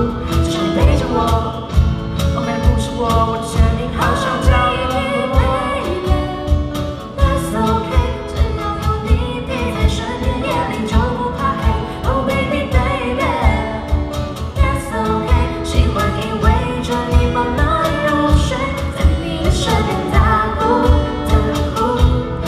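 Live band playing a song: a singer over guitar and a drum kit, with a steady drum beat under the sung melody.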